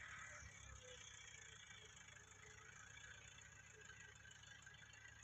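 Faint, distant Massey Ferguson 260 tractor's diesel engine running steadily, a low hum under a light hiss.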